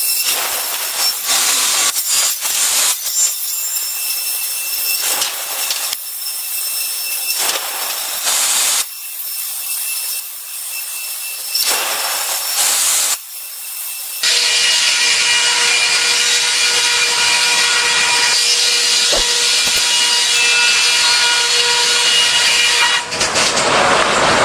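Power saw cutting wood in a series of passes, with a high whine and brief drops between the cuts. About halfway through, this gives way to a steadier, continuous machine-cutting sound with a low hum under it.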